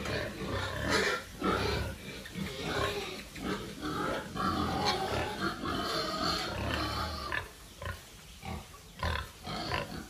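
A pig grunting over and over in short, irregular grunts, coming thick for most of the time and thinning out near the end.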